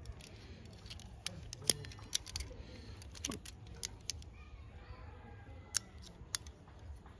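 Plastic toy handcuffs clicking as they are worked open and shut by hand: a scatter of sharp clicks, most in the first three seconds or so, then two more near the end.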